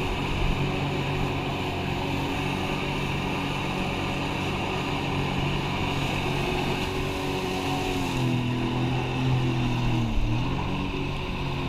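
Sea-Doo personal watercraft engine running steadily under load, pumping water up the hose to a Flyboard, with water and wind hiss. Its pitch shifts about eight seconds in and dips briefly near ten seconds.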